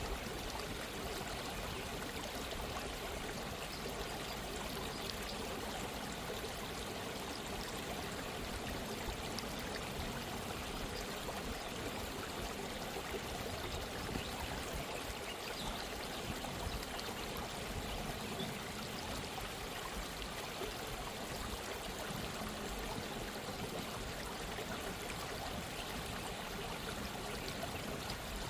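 A small stream of running water flowing steadily, a continuous even rush and trickle.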